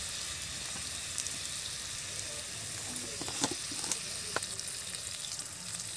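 Onion-and-spice masala sizzling in hot oil in a steel kadai, with fresh tomato pieces just added to cook: a steady hiss with a few light crackles around the middle.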